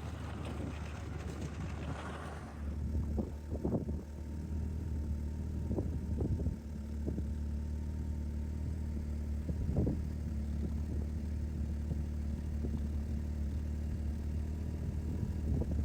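Snowmobile engine running at a steady speed, with a few sharp knocks along the way. A rushing hiss covers it for the first two seconds or so.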